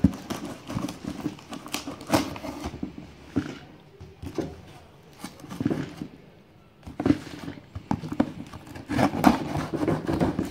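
Cardboard shipping box being opened with a utility knife: the blade slitting and scraping along plastic packing tape, with tape and cardboard rustling and knocking as the box is handled. There is a sharp knock at the very start, then irregular short scrapes and clicks.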